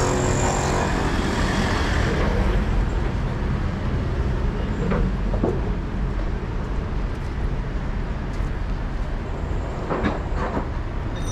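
Road traffic going by: a vehicle engine passes close at the start, then a steady traffic rumble.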